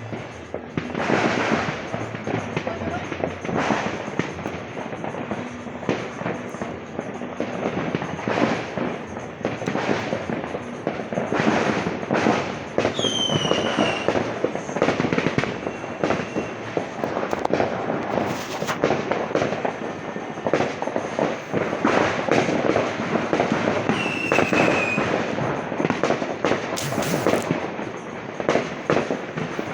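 Strings of firecrackers going off in a dense, continuous crackle of rapid bangs. Twice a brief falling whistle rises above it.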